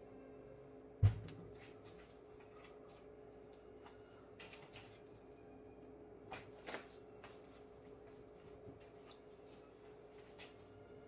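Handling of a heavy subwoofer and its plastic wrap during unboxing: one heavy low thud about a second in, then scattered soft rustles and light knocks, over a faint steady hum.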